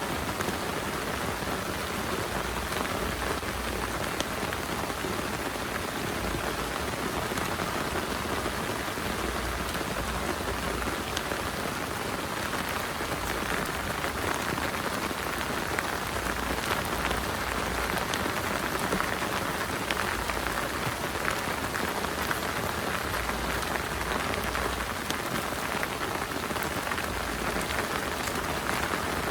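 Heavy rain falling steadily: a dense, even hiss of countless small drop impacts, with no let-up in intensity.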